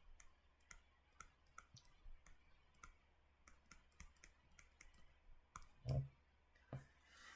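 Faint, irregular small clicks, about two or three a second, with a louder, duller knock about six seconds in and a smaller one just before seven.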